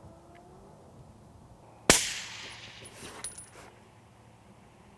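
A single shot from a suppressed Ruger Precision Rifle in 6.5 Creedmoor about two seconds in: a sharp crack followed by a rolling echo that dies away over about a second. A few fainter clicks follow about a second later.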